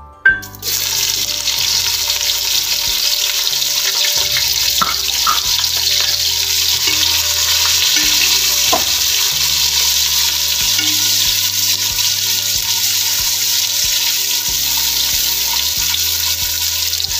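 Sliced onions sizzling in hot oil and ghee in an aluminium pot. The hiss starts suddenly a split second in as the onions hit the oil and then runs steady, with a few clinks of a metal ladle stirring them.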